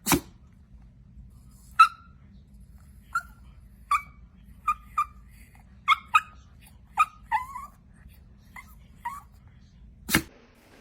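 A small dog giving about a dozen short, high yips at irregular intervals, with a sharp click at the start and another near the end.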